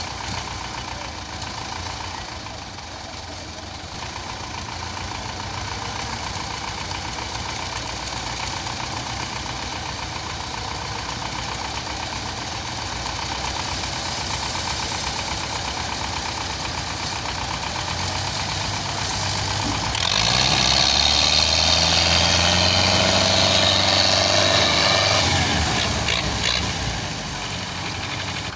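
Diesel tractor engines of a Belarus and a Fiat 640 running with a knocking clatter, then revving up about two-thirds of the way through. They hold high revs for about five seconds and ease back near the end, as the tractors strain to pull a heavily loaded trolley stuck in mud.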